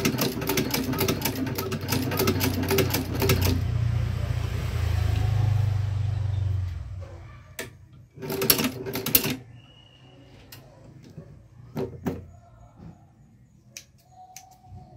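Shoe-repair patcher sewing machine stitching through a bag handle: a fast, even run of needle strokes for about three and a half seconds, then a low hum that dies away. After that come a short second burst of stitching and a few single clicks.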